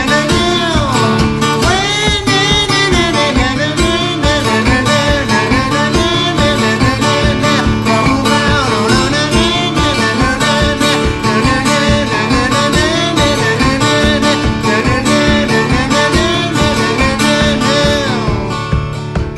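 A song with a singing voice over acoustic guitar and a steady beat; the singing stops near the end.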